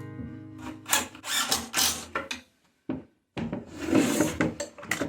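An acoustic guitar chord fades out, then comes a run of irregular wooden scrapes and knocks as wood pieces are handled and shifted.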